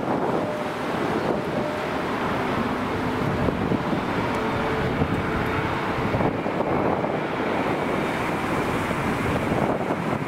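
Wind buffeting the microphone: a steady rushing noise with faint steady tones underneath.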